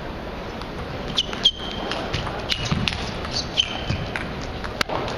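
Table tennis rally: the ball clicking sharply off the bats and table at an irregular pace, with sneakers squeaking twice on the hall's sports floor.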